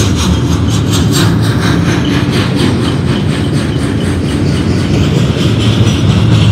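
Loaded double-stack intermodal well cars rolling past close by: a steady, loud rumble of steel wheels on the rails, with clicking and clatter from the trucks, strongest in the first couple of seconds.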